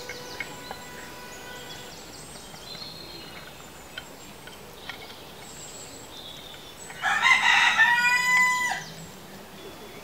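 A rooster crows once, about seven seconds in, a single loud call lasting about two seconds.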